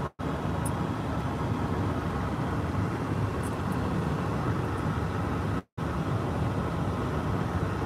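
Steady low rumble of a car heard from inside the cabin, broken off twice for a split second.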